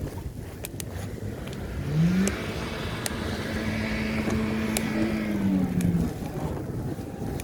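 A motor vehicle passing close on a city street: its engine note rises about two seconds in, holds steady with a swell of tyre noise, then drops away about two seconds later. Scattered sharp ticks run through it.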